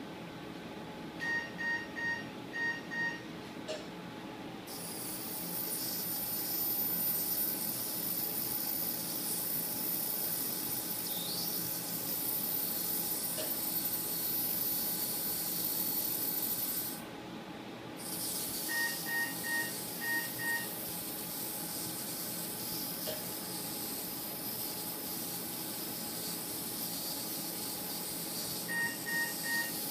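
Phacoemulsification equipment during canine cataract surgery: three runs of about six quick electronic beeps, with a steady high hiss that starts about five seconds in, drops out for a moment about twelve seconds later, and comes back.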